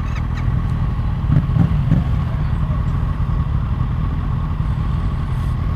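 2015 Yamaha FZ-07's parallel-twin engine idling steadily through an aftermarket Akrapovič exhaust.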